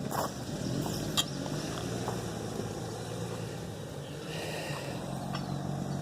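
An engine running steadily at idle, with a few light clicks over it.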